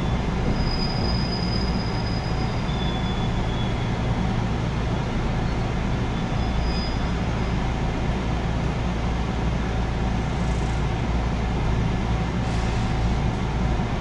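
JR West 221 series electric train running at speed, heard from inside the passenger car: a steady rumble of wheels and running gear on the track. Faint high wheel squeals come through in the first few seconds.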